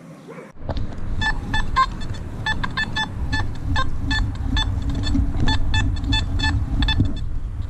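Nokta Makro Simplex metal detector giving short, repeated target beeps as the coil is swept, a few a second, over a steady low rumble that starts about half a second in.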